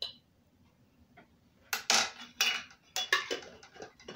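Metal measuring spoon clinking and scraping against a glass spice jar while scooping out paprika. Quiet at first, then a quick run of sharp clinks and scrapes from a little under two seconds in.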